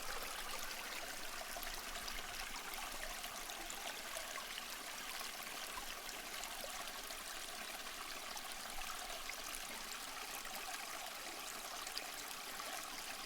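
Aquarium water trickling steadily and faintly.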